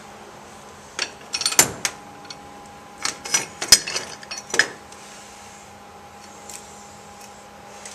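Metal parts of an opened replaceable-core suction filter-drier clinking and rattling as they are handled, in two bursts of sharp clinks about a second in and about three seconds in. A steady hum runs underneath.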